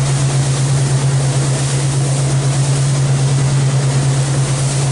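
Motorboat engine running steadily at speed, a constant low drone, under a loud rush of wind and water.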